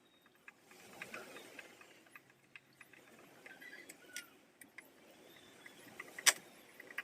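Scattered light clicks and taps of tools and plastic shower fittings being handled during installation, with one sharp click about six seconds in.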